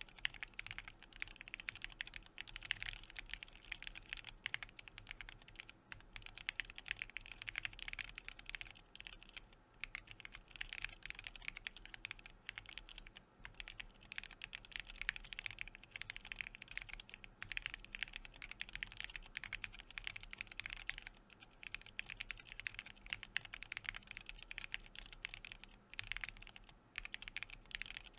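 Sound test typing on a custom Alice-layout IV Works Av4 mechanical keyboard, built as a leaf-spring gasket mount with an FR4 plate and plate foam, fitted with lubed prototype IV Darkmoon linear switches and PBT keycaps. The keystrokes come as a fast, steady clatter with a few brief pauses.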